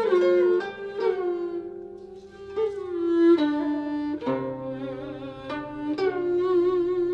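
Guzheng and yehu (coconut-shell fiddle) playing a slow, mournful Cantonese melody: plucked guzheng notes ring and fade under the bowed yehu line, which slides between pitches and wavers with vibrato in the second half.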